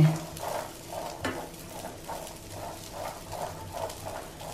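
Fresh corn kernels being stirred with a metal spoon in a nonstick frying pan, with a steady rhythm of scraping strokes about two a second over a light sizzle as the kernels pan-roast in a little oil.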